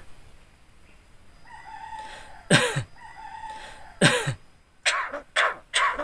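Caged Javan myna calling without words: a faint held whistle about a second and a half in, two loud calls that drop sharply in pitch, then a quick run of four short calls near the end.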